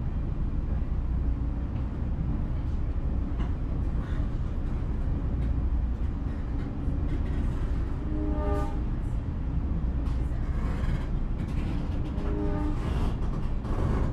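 Passenger train running along the track: a steady low rumble throughout, with two short pitched tones, one a little past halfway and one near the end.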